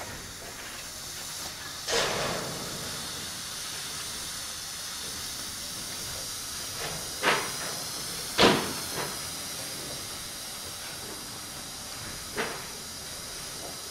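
Firework smoke can burning, giving a steady hiss as it pours out orange smoke, with a few sudden louder bursts, the loudest about eight and a half seconds in.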